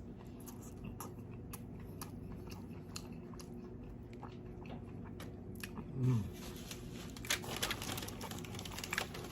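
Close-up chewing of an In-N-Out burger: soft wet clicks and crunches. There is a short low "mm" hum about six seconds in, and denser crackling over the last couple of seconds.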